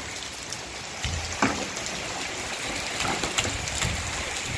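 Steady rain falling on a concrete rooftop, with scattered patters and occasional splashes from bare feet on the wet surface.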